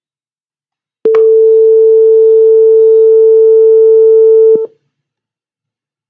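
Buzzer of a simulated PIC16F877A board in PICSimLab sounding one steady, mid-pitched beep for about three and a half seconds. It starts with a click about a second in and stops with a click. It signals that the microwave-oven cooking timer has run out.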